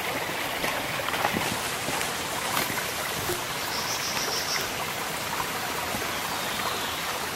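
Shallow rocky stream running steadily over stones, with a few faint knocks and a brief high buzz about four seconds in.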